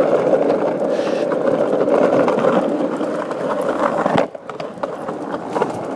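Skateboard wheels rolling steadily over asphalt, a continuous gritty rumble. About four seconds in there is a sharp knock, and the rolling goes on a little quieter.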